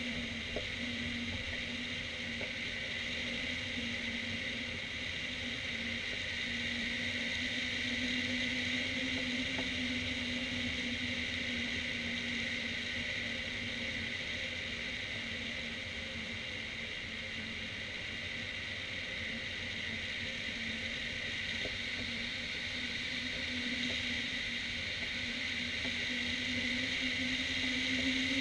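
Steady rush of airflow over a hang glider in flight, with a low droning hum and a higher hissing whistle that waver slightly in pitch.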